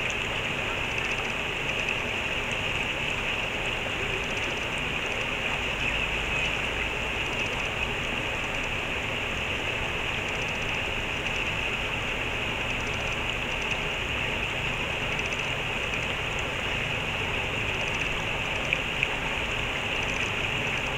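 Steady rush of a flowing stream, an even hiss of running water with no break.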